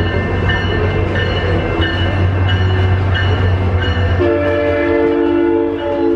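Railroad crossing warning bell dinging about every 0.6 s over a steady low rumble. About four seconds in, a SunRail commuter train's horn sounds one long chord, lasting about two seconds, as the train enters the crossing.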